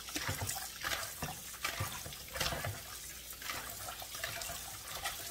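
Kitchen tap running into a plastic bowl in a stainless steel sink while hands rub and swish pieces of raw beef tripe, washing them in water and vinegar, with irregular splashes.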